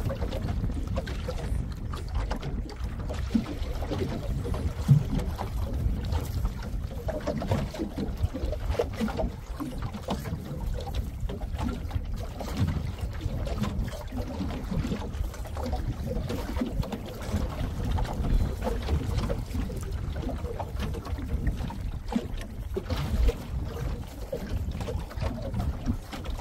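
Uneven low rumble of wind on the microphone, with water lapping against the hull of a small open fishing boat drifting at sea.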